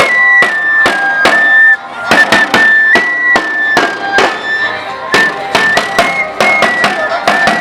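Traditional procession music: a high wind instrument plays a stepwise melody of held notes over sharp, rapid drum strokes, about three a second.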